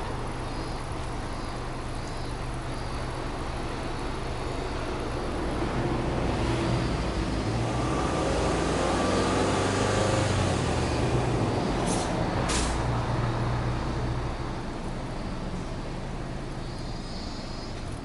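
Subaru Legacy 2.0GT's turbocharged EJ20 flat-four engine heard at the dual exhaust, running at idle. About six seconds in the engine speed rises gently and is held for several seconds, then settles back toward idle near the end. Two short hisses come about twelve seconds in.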